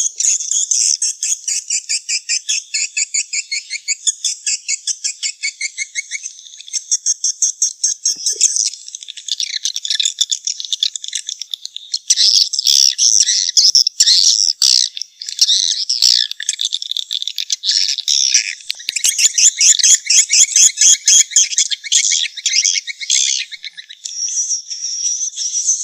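Swiftlet calls used as a swiftlet-house lure sound: continuous high-pitched twittering chatter in rapid trains of clicking chirps.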